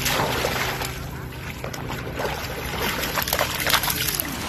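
A small dog running through shallow water, splashing irregularly with each stride.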